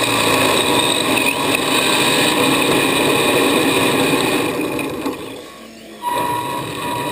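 Electric motor and gear drivetrain of a radio-controlled car whining steadily as it drives, heard from a camera riding on the car. The sound eases off about five seconds in and picks up again about a second later.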